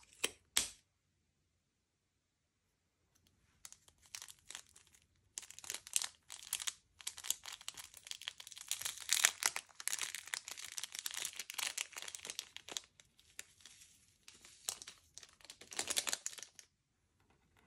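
Slime being squished and stretched by hand, with dense crackling and popping. Two sharp clicks come at the very start. The crackling begins a few seconds in and builds to its loudest in the middle. It thins out and stops shortly before the end.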